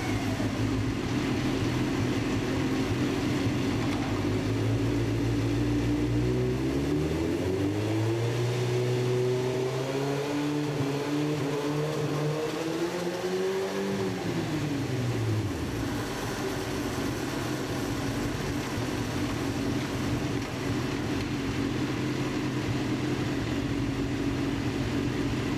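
Suzuki GSX-R 1000 inline-four engine running steadily, its pitch climbing from about six seconds in to a peak near fourteen seconds, then dropping back to a steady run.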